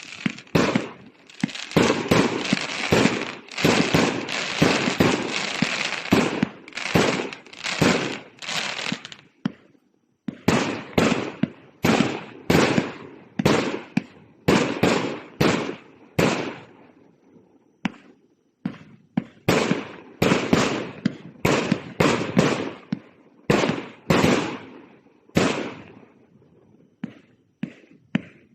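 A 200-shot, 1.2-inch fireworks cake firing shot after shot. For the first nine seconds or so the reports come thick and overlap, with continuous crackling between them. After that they come as separate sharp bangs, roughly one or two a second, with brief pauses.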